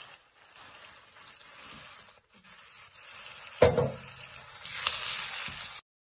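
Carrots and onions sizzling in a stainless steel pan while a wooden spatula stirs them. A single sharp knock comes about three and a half seconds in, and the sizzling and stirring grow louder near the end as everything is mixed, then the sound cuts off suddenly.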